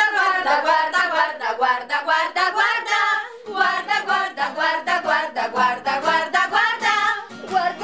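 Women singing a quick, lively song in short, rhythmic syllables.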